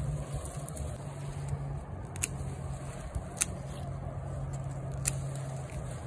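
Pruning snips cutting through sweet potato vine stems: several sharp snips a second or more apart, over a steady low hum.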